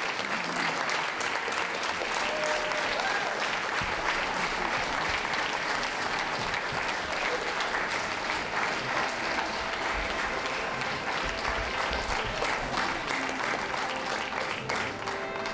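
Audience applauding: a dense, steady patter of hand claps.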